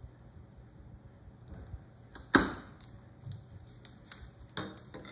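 Wood chisel pressed down through thin veneer onto a board, with one sharp click about halfway through and a few lighter clicks and taps around it.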